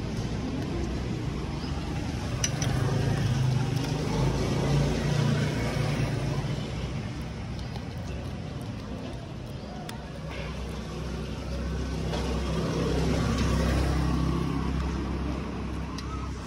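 Street traffic: motor vehicle engines running, the sound swelling and fading twice as vehicles pass.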